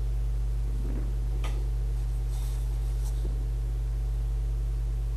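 Steady low hum with a few faint scattered ticks.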